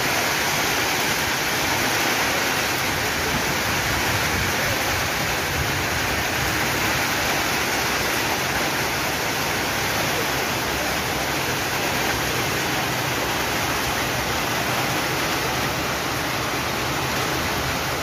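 Heavy rain falling steadily, a loud even hiss with no breaks.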